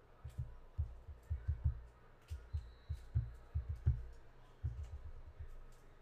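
Typing on a computer keyboard: irregular keystrokes, several a second, heard mostly as dull low thuds with faint clicks.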